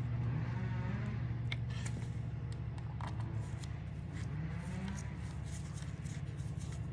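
Light, irregular metallic clicks and ticks of hand tools tightening the motorcycle's cover bolts, over a steady low hum.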